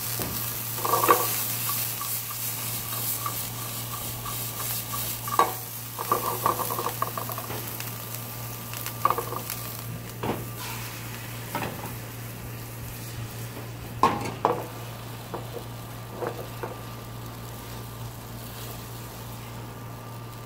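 Diced bacon, onion and green pepper sizzling in a small frying pan over a gas flame, with a utensil stirring and scraping the food and now and then knocking against the pan. The sizzle fades in the second half as beaten egg is worked into the pan for an omelette.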